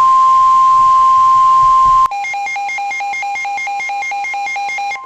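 NOAA Weather Radio 1050 Hz warning alarm tone, a steady single pitch, announcing a new severe thunderstorm warning. About two seconds in, a different electronic alarm cuts in for about three seconds, flipping between a low and a high pitch several times a second. The steady tone returns near the end.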